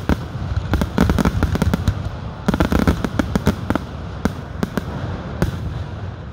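Aerial fireworks bursting overhead: rapid volleys of sharp bangs and crackles come in clusters, with short lulls between them.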